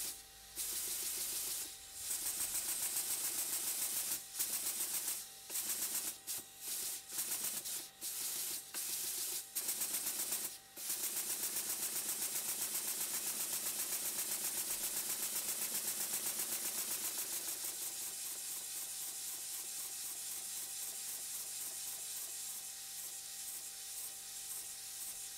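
Twin oscillating-cylinder model steam engine running on compressed air, a steady hiss of air with fast, even exhaust beats from the cylinders. Part of the hiss is a blow from the left-hand cylinder, whose face is not sealing tightly against the port face. The sound cuts out briefly several times in the first half and eases a little toward the end.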